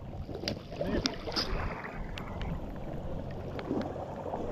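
Wind noise on the microphone over water and boat sounds on open water, with a few scattered sharp ticks.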